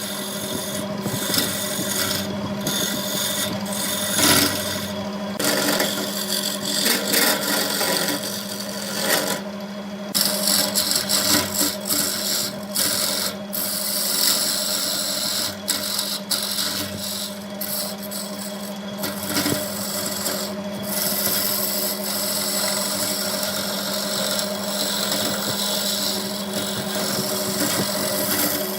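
Wood lathe running with a steady hum while a turning tool cuts the spinning wood, a rough scraping that keeps stopping briefly and starting again as the tool is lifted and put back.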